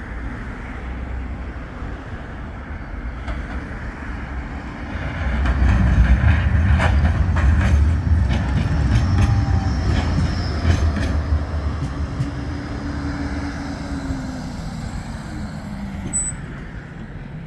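Bombardier Flexity 2 tram running slowly past on street track, its low rumble swelling as it draws close, with several sharp clicks from the wheels on the rails. A whine falls in pitch as it moves away near the end.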